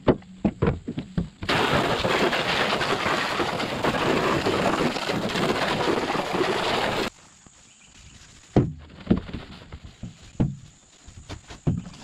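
Garden hose spraying water onto the steel bed of a pickup truck: a loud, steady hiss from about a second and a half in, cutting off at about seven seconds. After that, quieter scrubbing with a few sharp knocks.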